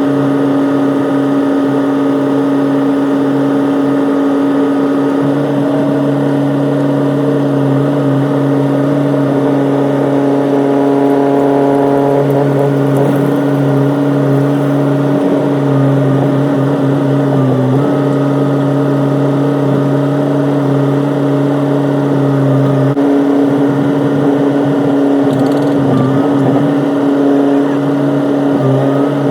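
Excavator's diesel engine running at a steady pitch, with small shifts and dips in its note as the machine is worked.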